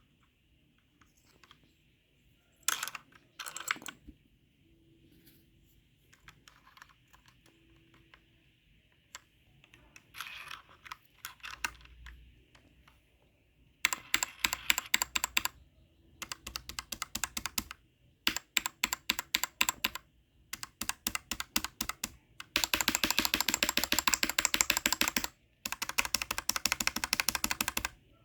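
Typing on a mechanical keyboard fitted with low-profile keycaps on standard mechanical switches. A few scattered clicks come first, then from about halfway there are bursts of rapid key clicks a second or two long, with the fastest, longest run near the end.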